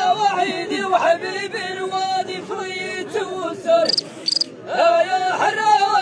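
A group of men chanting Amazigh sung poetry together, with long held notes that bend at their ends. About four seconds in, there are two short high-pitched tones.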